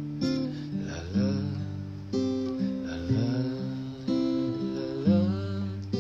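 Acoustic guitar strummed in a steady rhythm, a new chord struck about once a second.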